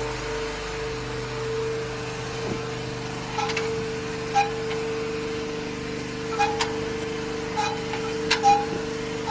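Drain-cleaning machine running with a steady hum as its black hose is fed off a reel into a blocked drain, with several sharp clacks from about three seconds in.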